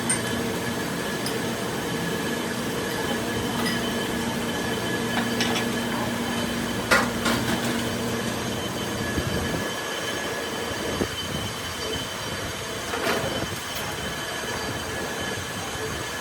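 A workshop machine running steadily, with a continuous metallic whine over a lower hum. The hum drops away about nine seconds in, and a few sharp clicks come through, the loudest about seven seconds in.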